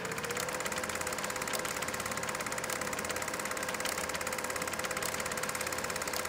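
Super 8 film projector running: a motor hum that rises slightly in pitch in the first second and then holds steady, over the rapid, even clicking of the film advance.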